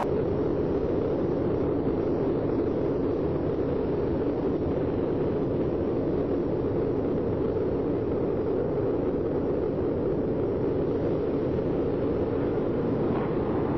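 Steady jet roar of a Panavia Tornado's twin RB199 turbofan engines at take-off power, an even rushing noise with no let-up.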